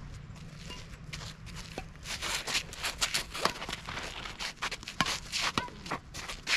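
Badminton rally on a dirt court: players' shoes scuffing and shuffling on the gritty ground, with sharp racket hits on the shuttlecock. The scraping and clicking get busy about two seconds in.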